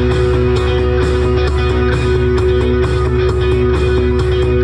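Music with guitar and a steady beat.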